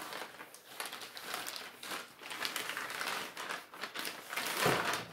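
Plastic wrapping crinkling and rustling as a digital readout's linear scale is handled and pulled from its sealed plastic bag, loudest near the end.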